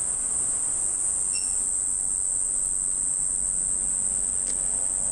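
Steady high-pitched chirring of insects, an unbroken insect chorus.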